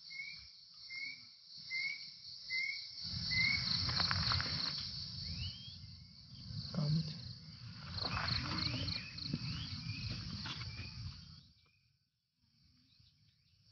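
Insects trilling steadily in high pitch, with a bird repeating a short rising note about once a second over the first few seconds and a few more scattered calls later. From about three seconds in a low rumble joins them, then drops away near the end, leaving it much quieter.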